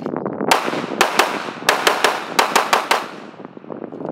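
Glock 45 9mm pistol firing a rapid string of about ten shots, several in quick pairs, starting about half a second in and ending about three seconds in, over a steady rush of noise.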